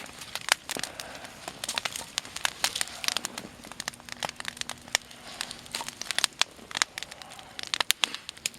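Wood campfire crackling, with frequent irregular sharp pops and snaps.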